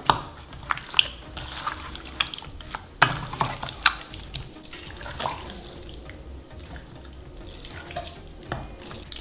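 Hands kneading raw chicken pieces in a wet marinade in a stainless steel bowl: irregular wet squelches and smacks, sharpest and most frequent in the first four seconds, then softer and sparser.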